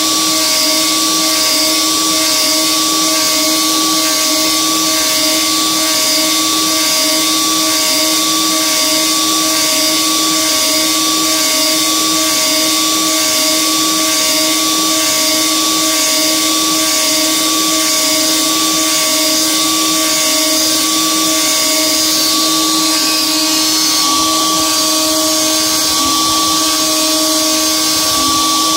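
DeWalt DWP-611 router, running as the spindle of an X-Carve CNC machine on speed setting 2, with a steady whine while a 1/8-inch two-flute carbide endmill takes dry, shallow roughing passes in 6061 aluminium.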